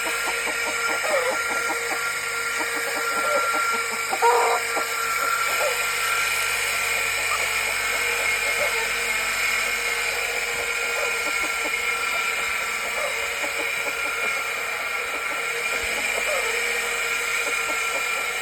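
Grinder with a grinding stone running with a steady whine, grinding back a rooster's spur. Chickens cluck now and then, the loudest call about four seconds in.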